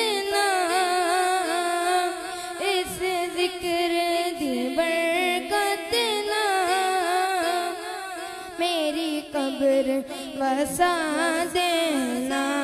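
A boy's voice sings a naat unaccompanied into a microphone, in long held, wavering notes with many ornaments. A steady drone-like tone sits beneath the melody.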